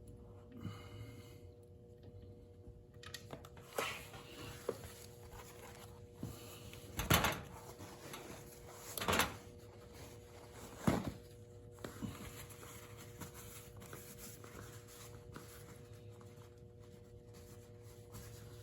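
Scattered metallic knocks and clanks, about six of them spread out, from hand tools working the drain plug on the engine of a Lifan KPR 200 motorcycle during an oil change. A faint steady hum runs underneath.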